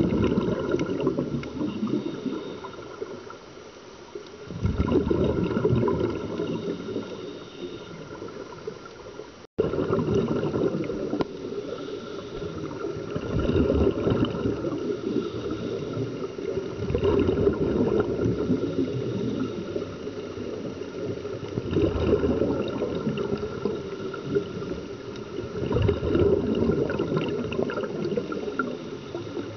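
Scuba regulator exhaust bubbles heard underwater: bubbling and gurgling that swells in surges about every four seconds, with each exhaled breath. The sound cuts out for an instant about ten seconds in.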